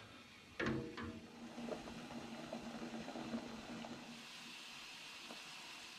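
Faint steady hiss of a steel pan of sugary apple-and-honey mead must simmering on a gas hob, with one light knock about half a second in.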